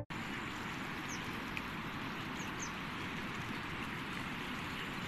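Steady rushing noise of muddy floodwater flowing along a field channel, with three short high chirps about a second in and past the two-second mark.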